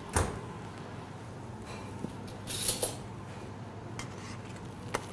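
A stainless combi oven door shut with a single loud thump about a quarter second in, then a metal spoon scraping and clinking twice on a metal baking tray a couple of seconds later, with a few lighter taps near the end. A steady low kitchen hum runs underneath.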